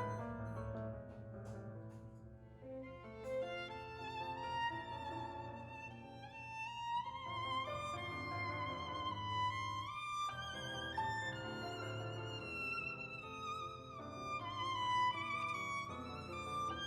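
Background music: a slow violin melody with vibrato over a soft accompaniment.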